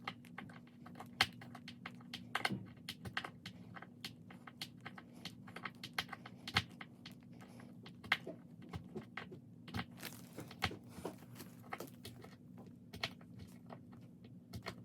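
Irregular light clicks, taps and crinkles from handling flat-pack furniture parts and packaging, over a steady low hum.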